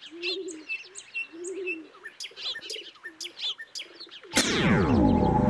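Birds chirping, with a dove cooing, as a background ambience. About four seconds in, a loud effect of many pitches sliding downward together sweeps in for over a second: a cartoon magic cue.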